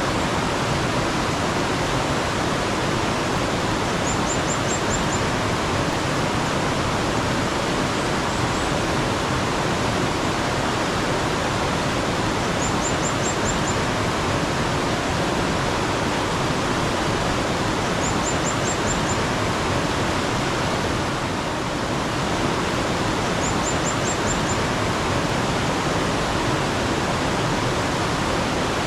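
Mountain stream water rushing steadily, with a small bird's short run of quick, high chirps heard four times, about every five or six seconds.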